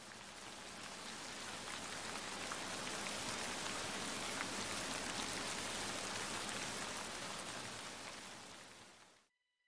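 Heavy rain, a steady hiss of falling drops, swelling in gradually, then fading and cutting off about nine seconds in.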